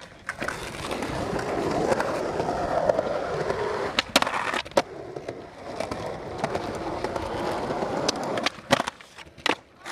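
Skateboard wheels rolling over smooth concrete, with sharp clacks of the board and trucks hitting concrete about four seconds in and a few more near the end.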